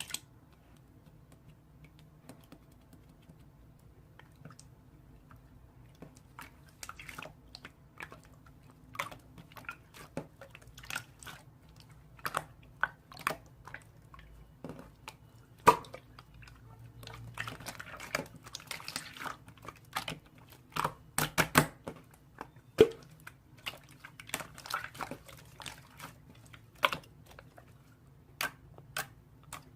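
Slime being pressed and stretched by hand, giving irregular sharp clicks and small wet pops, sparse at first and much more frequent after the first few seconds.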